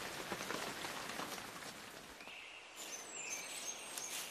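Soft, steady hiss of rain falling, with small birds chirping from about halfway through.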